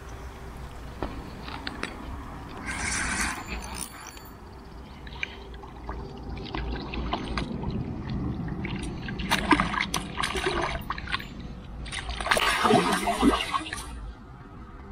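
River water splashing in several bursts as a hooked carp thrashes at the surface and is netted with a landing net, the loudest splashing in the last few seconds.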